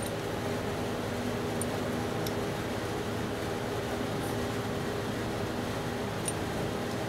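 A steady mechanical hum holding several steady tones, with a few faint light clicks as small metal carburetor parts are handled and the float bowl is fitted back on.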